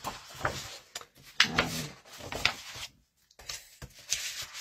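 Sheets of patterned card-making paper being shuffled and slid over one another, rustling in several short strokes.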